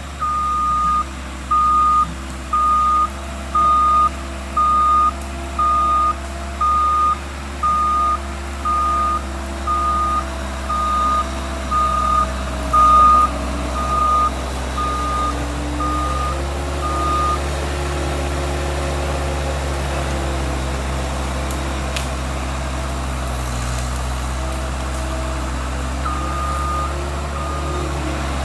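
Skid steer backing up, its reverse alarm beeping about once a second over the steady running engine. The beeping stops about two-thirds of the way through while the engine runs on, then two more beeps sound near the end.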